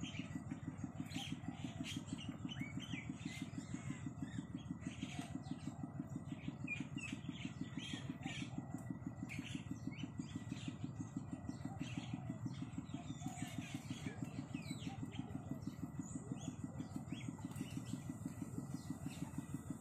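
A small engine idling steadily with an even low putter, about five beats a second, while small birds chirp now and then.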